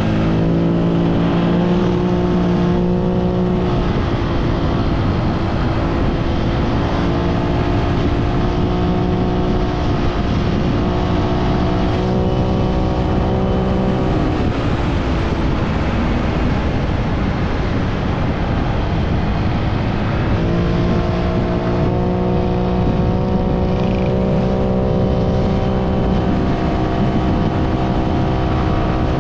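Honda Click V3 scooter's engine and CVT running under way, fitted with a mushroom air filter on the CVT intake. The note climbs as it accelerates just after the start, falls away around fourteen seconds in, and climbs again about twenty seconds in, over steady wind and road rumble.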